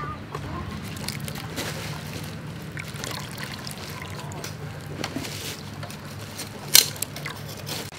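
Water trickling through a mesh strainer into a steel bowl, then hands squeezing and kneading wet ground rice in the bowl, with one sharp knock just before the end.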